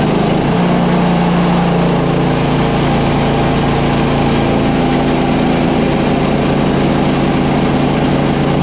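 An engine running at a steady speed.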